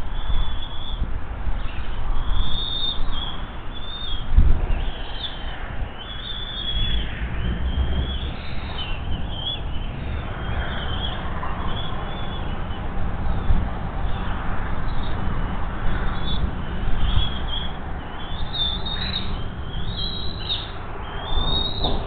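Bald eaglets food-begging with repeated short, high-pitched chirps while an adult bald eagle feeds them in the nest. A low rumbling noise runs underneath.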